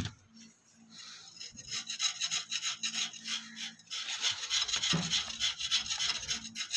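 A single sharp click, then, from about a second and a half in, quick repeated rubbing strokes, many short strokes a second.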